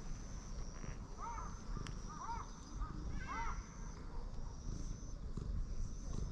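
A few short rising-and-falling animal calls, single and in quick runs, over a steady low rumble, with a faint high tone coming and going.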